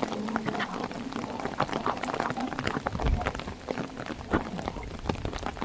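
Heavy rain hitting a car's windshield: a dense, irregular run of drop hits over a steady hiss, with a brief low rumble about three seconds in.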